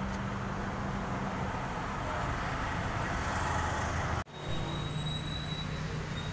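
Steady rumble and hiss of passing road traffic, with a low hum, dropping out for an instant about four seconds in.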